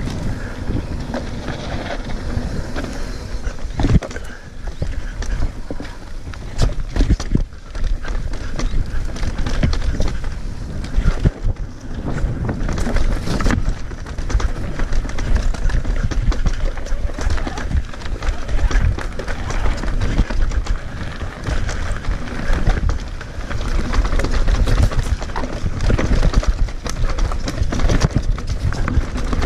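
Mountain bike riding fast down a rough dirt trail: wind rushing over the microphone with the tyres rumbling on the ground. Frequent sharp knocks and rattles come from the bike as it hits bumps and roots, one heavy knock about four seconds in.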